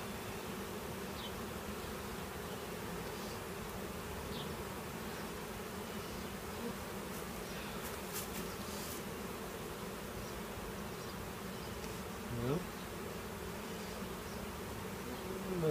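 Many honeybees buzzing steadily in the air around an open hive they have just been installed into. About twelve seconds in, one louder buzz swells and fades.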